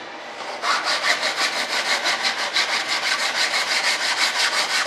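Hand sanding block rubbing back and forth along the edge of a model aircraft's rudder piece. It starts about half a second in and keeps going in quick, even strokes.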